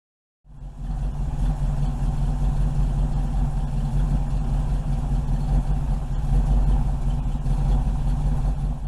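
A 408 cubic-inch stroker V8 in a 1985 Dodge D150, fed by a Holley Sniper EFI, running at a steady speed with an even low-pitched sound. It cuts in suddenly about half a second in.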